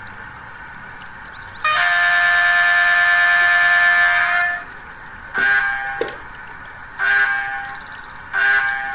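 A DCC sound decoder in an HO-scale Athearn SW1500 model locomotive sounds its horn through the model's small speaker. After a quieter steady running sound, there is one long blast of about three seconds, then three short blasts. The decoder carries an electric-locomotive sound set.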